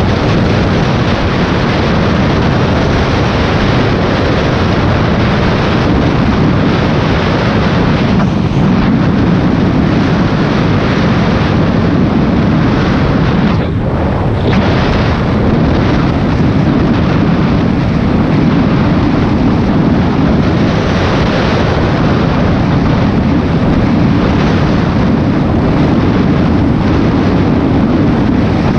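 Honda VTX V-twin cruiser engine running steadily at road speed, under heavy wind noise buffeting the microphone.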